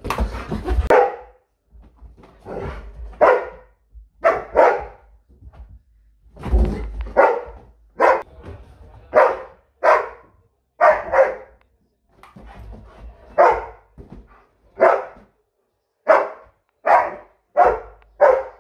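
Hungarian Vizsla barking repeatedly at a balloon in play: about twenty short barks at an uneven pace, many in quick pairs.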